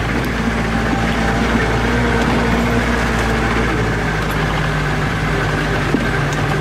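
Engine of a small van running steadily under load as it climbs a rough dirt mountain track, heard from inside the cabin. Its note drops a little about halfway through.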